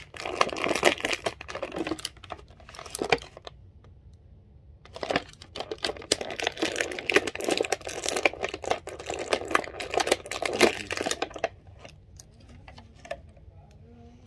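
Clear plastic packaging of an action figure crinkling and tearing as it is pulled open by hand, in two long stretches with a short lull a few seconds in, then dying down near the end.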